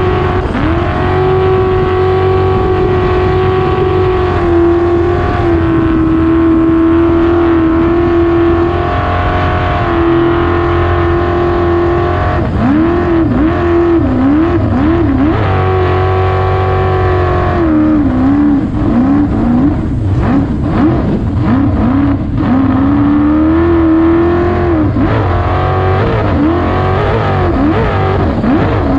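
Racing jet boat's engine running hard, heard from on board. Its pitch holds steady at first, then dips and climbs again and again through the second half.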